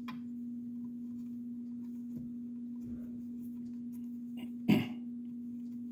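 A steady low hum throughout, with faint small clicks as a hex key works a screw out of the Ender 3 Pro's mainboard cover. About three-quarters of the way through, one brief, much louder sound, like a cough or throat-clear.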